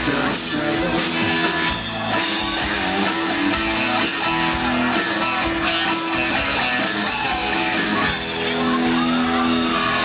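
Live country band playing an instrumental stretch on electric guitars, bass guitar and drum kit, loud and steady, with no sung lyrics.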